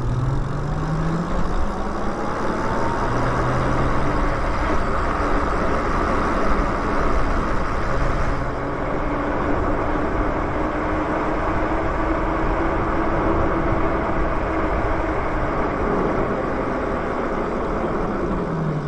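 Lyric Graffiti e-bike riding fast on pavement: steady wind and tyre noise with the electric motor's whine underneath. The whine rises in pitch as the bike speeds up near the start and falls near the end as it slows.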